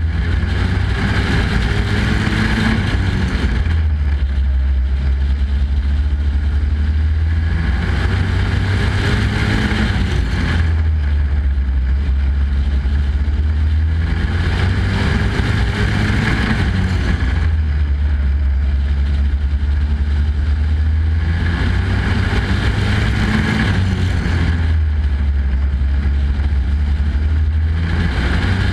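Race truck engine heard from on board at full racing speed, rising in pitch under acceleration and easing off about every seven seconds as the truck works through the straights and turns of a short oval. A heavy rumble runs underneath.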